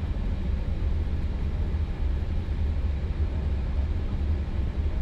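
Steady low rumble inside an Airbus A320 cockpit as the airliner taxis, with an even hiss over it.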